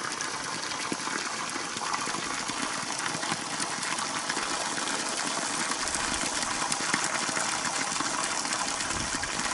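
A thin stream of water pouring steadily from the end of a pipe and splashing onto rocks and bare ground.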